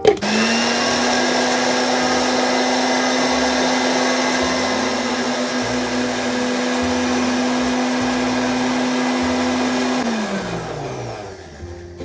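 Electric countertop blender motor switched on, running at a steady speed for about ten seconds, then switched off and spinning down with a falling whine.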